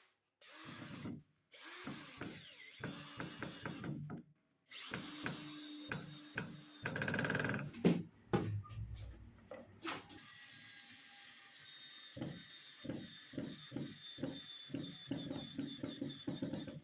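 Electric drill working wood in short bursts, with repeated knocks and strokes between them; the sound breaks off abruptly several times.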